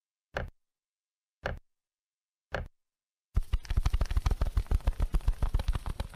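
Sound effects from a prerecorded dance soundtrack: silence broken by three sharp ticks about a second apart, like a clock. About halfway through, a fast run of heavy low beats takes over, about ten a second.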